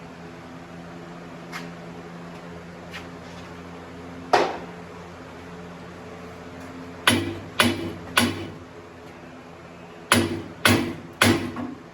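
Hammer striking the freshly welded steel tube of a go-kart roll cage seven times, each a sharp metallic knock with a short ring: once, then two quick groups of three. A steady low electrical hum runs under the first half.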